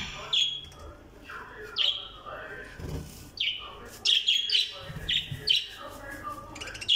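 Caged parrots giving short, sharp, downward chirps, spaced out at first and coming in quick clusters in the second half. They are calling at the sight of fresh coriander being put into the cage.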